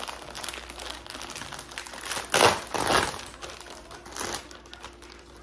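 Clear plastic packaging crinkling and rustling as pillowcases are handled and pulled out of the bag. It is loudest for about a second near the middle, with a shorter crinkle later.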